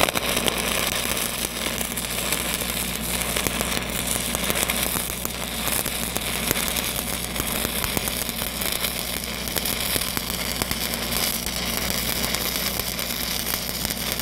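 Stick welding with a 3/16-inch 7010 pipeliner rod at about 160 amps: the arc crackles steadily and hard while the cap pass is run downhill. A steady low hum sits underneath.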